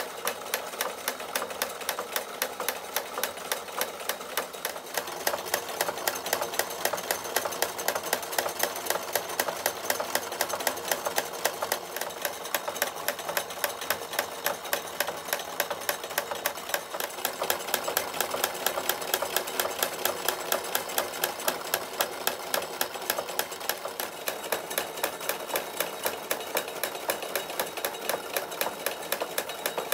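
Wilesco D24 toy steam engine running with the belt-driven model workshop machines it powers: a fast, even clicking rattle.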